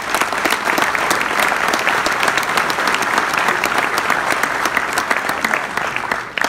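A roomful of people applauding, with sharp close hand claps from the nearest table over the general clapping, starting to die away near the end.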